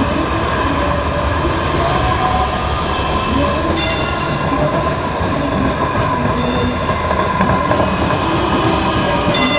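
DART Kinkisharyo light rail vehicle passing close by, a steady rumble with several high, even tones running over it. Two short, sharp clicks come through, about four seconds in and near the end.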